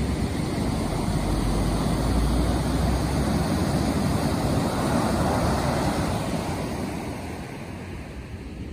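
Surf breaking and washing up a sandy beach, with wind rumbling on the microphone. The wash eases off over the last couple of seconds.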